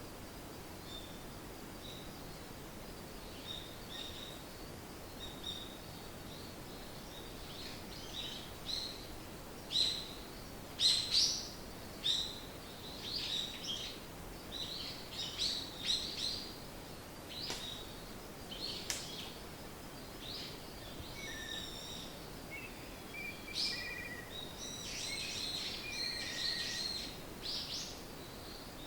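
Small songbirds chirping and calling, with short high calls. The calls are sparse at first, grow busier from about eight seconds in, and include a run of quick trills near the end, over a steady faint hiss.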